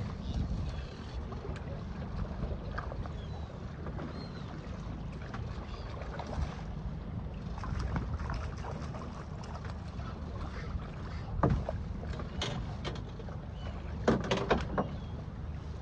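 Steady low rumble of wind and water around a small boat at sea, with a few sharp knocks and splashes in the second half as a hooked bass thrashes at the side of the boat.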